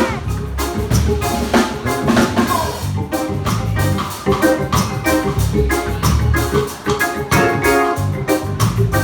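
Live band playing an instrumental break of a reggae song, with an organ-like keyboard over a steady drum beat and bass.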